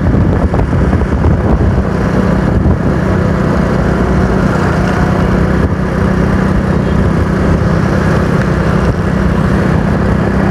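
Motorcycle engine running at a steady cruising speed, with a steady low hum and continuous wind and road noise while riding.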